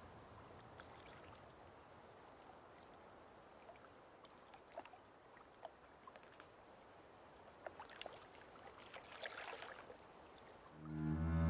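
Faint background noise with scattered small clicks and ticks. Near the end, low bowed-string music, cello and double bass, comes in and grows loud.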